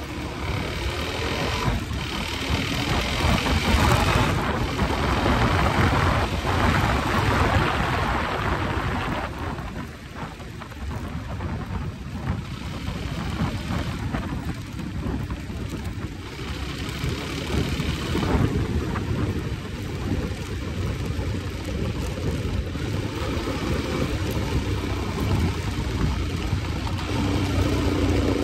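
Motorcycle riding along at speed, wind buffeting the microphone in loud, uneven gusts over the engine's running. Near the end the engine's note comes through more plainly.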